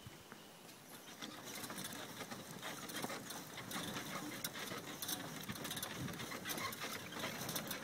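Horse-drawn cart rolling along a dirt road, with a steady run of irregular clicking and rattling. It starts about a second and a half in, after near quiet.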